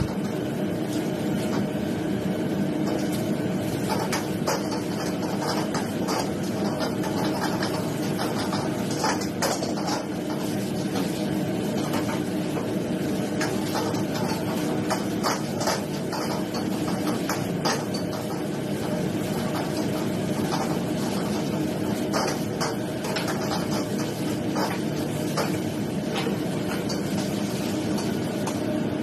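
Gas wok burners running steadily while a metal ladle clanks and scrapes against a steel wok in irregular strokes as noodles are stir-fried.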